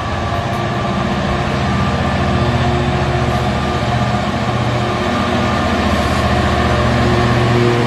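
Diesel locomotive engine sound from a model Class 47: a low, steady throb that slowly grows louder as the locomotive approaches.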